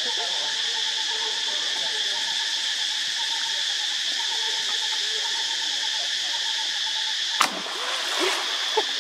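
Steady high-pitched insect chorus. About seven and a half seconds in, a sudden splash and a second of sloshing water as a macaque moves in the pond.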